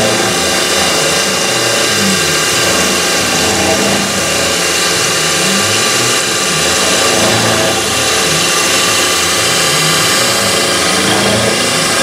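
CNC milling machine spindle running steadily while the cutter takes a light 0.05 mm finishing pass around an aluminium knob blank, with flood coolant spraying over the cut.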